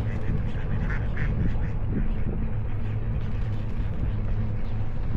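Ducks quacking, a few short calls about a second in, over a steady low rumble of wind and riding noise on the microphone.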